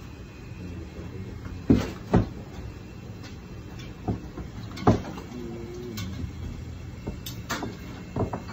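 A few sharp knocks and thumps, the loudest two close together about two seconds in, over a steady low rumble.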